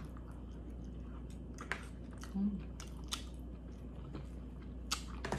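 A person chewing and biting food close to the microphone, with a few sharp clicks and a short hummed "mm" about halfway through.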